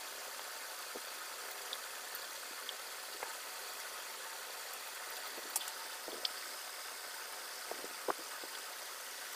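Steady background hiss with a few faint, scattered clicks and smacks of eating by hand: fingers mixing rice and curry on a glass plate, and chewing.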